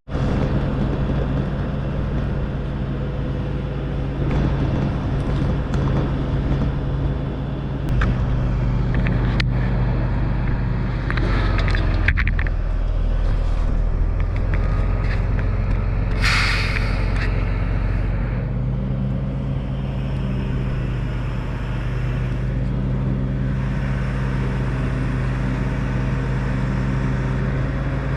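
Heavy diesel engine of a 1974 Kenworth log truck running steadily, its low note heavier for a stretch in the middle. About sixteen seconds in comes a short hiss of air from the air brakes.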